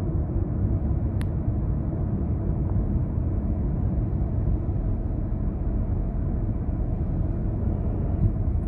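Steady low road and engine rumble of a moving car, heard from inside the cabin, with a faint tick about a second in.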